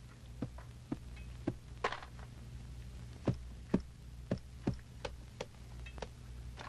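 Footsteps, soft knocks landing about two a second at an uneven pace, over a steady low hum.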